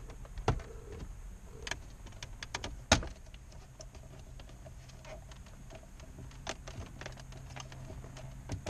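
Plastic dash trim bezel being pried and pulled off by hand, its retaining clips clicking and creaking, with one sharp snap about three seconds in, over a steady low hum.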